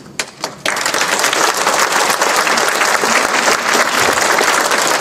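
Audience applauding: a few scattered claps, then full, steady clapping from under a second in.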